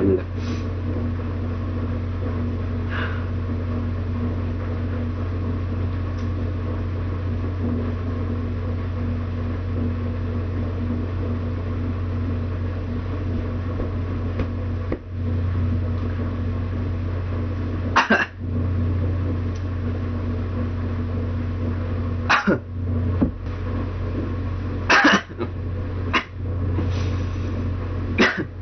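A man coughing and clearing his throat in several short, sharp bursts in the second half, from the burn of gulping hot sauce, over a steady low electrical hum.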